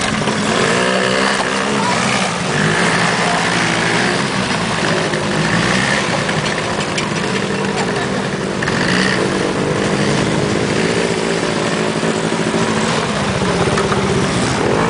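ATV engines running and revving up and down, their pitch rising and falling.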